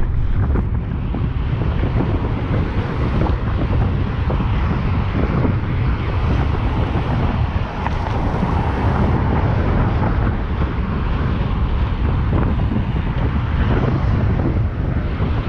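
Wind buffeting the microphone of a camera worn by a cyclist riding at speed on a road bike: a loud, steady rumble.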